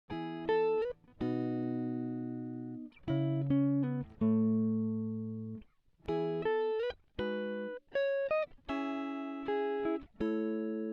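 Background music of plucked guitar notes and chords, each struck sharply and left to ring and fade.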